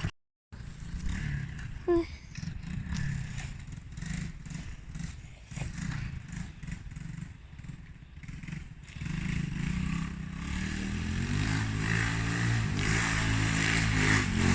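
Monkey bike's small engine running as it is ridden. Its note wavers at first, then gets louder and steadier about nine seconds in.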